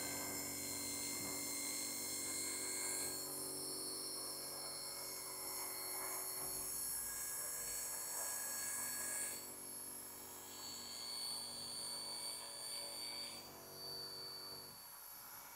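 Corded electric hair clippers running with a steady buzz as they cut through hair, stopping shortly before the end.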